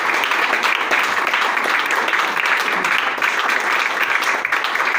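Small audience applauding, a steady, dense patter of many hands clapping.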